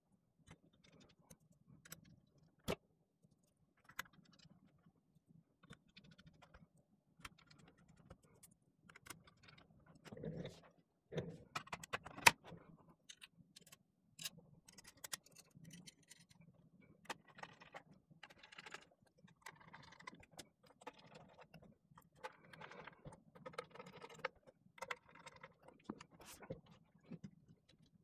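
Faint, scattered clicks, taps and rustling of an aluminium custom keyboard being reassembled by hand: small metal parts, screws, plate and case pieces handled and set together. The sharpest click comes about twelve seconds in.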